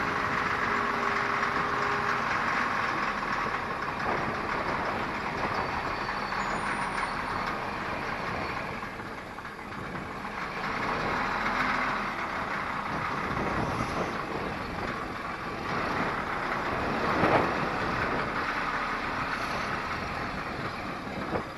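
CAT 14G motor grader running as it works its blade into a pile of crushed gravel, a steady engine-and-machine noise that swells and eases. There is one brief louder knock near the end.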